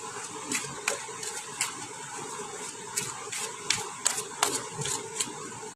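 Tarot cards being shuffled by hand: a steady papery rustle broken by many irregular sharp snaps of the cards.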